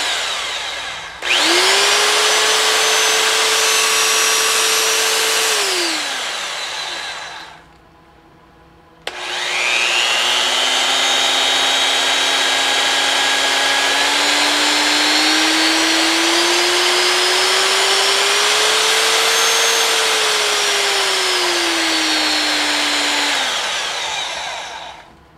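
Triton TA1200BS belt sander running free in the hand, off the work: a run winds down at the start, it starts again about a second in, runs about five seconds and winds down. After a short pause it starts once more and runs for about fourteen seconds, its whine slowly climbing in pitch and then dropping before it winds down near the end.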